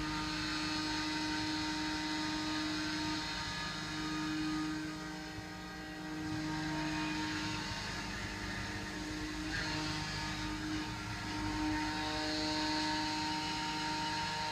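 Steady machine hum: several held tones over a low noise bed, shifting slightly in pitch a few times.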